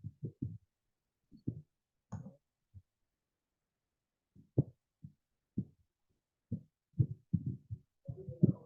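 A dozen or so short, dull, low-pitched thumps at irregular intervals, with dead silence between them.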